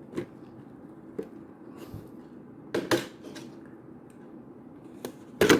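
Hands handling plastic action-figure parts and packaging: a few scattered clicks and knocks, the loudest about three seconds in and just before the end.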